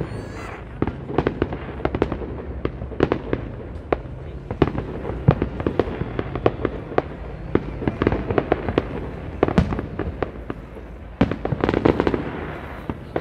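Fireworks display going off: a rapid, irregular series of bangs and crackles, with a dense cluster of bangs about eleven seconds in.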